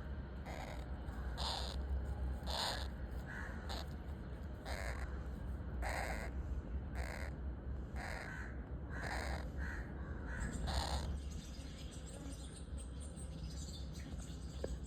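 Harsh bird calls repeated about once a second, stopping about eleven seconds in, over a steady low rumble.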